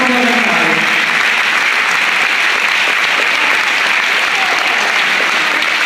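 Audience applauding steadily, with a voice heard over the clapping in the first second.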